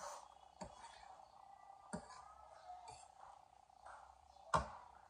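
Metal forks clinking against ceramic plates while eating noodles: four separate clinks, the loudest near the end, over a faint steady hum.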